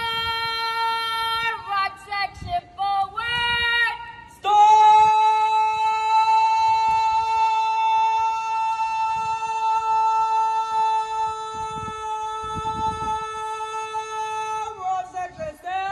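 A single high voice singing a military cadence: a held note, a few quick gliding notes about two seconds in, then one note held for about ten seconds.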